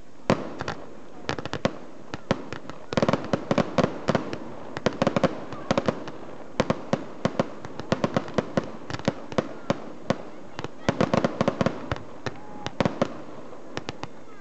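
Aerial firework shells bursting in a rapid, irregular string of sharp bangs and crackles, thickening into dense volleys about three seconds in and again near the eleven-second mark.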